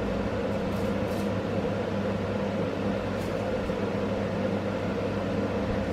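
Steady low hum of a running machine, unchanging throughout, with a few faint light clicks about a second in and again past the middle.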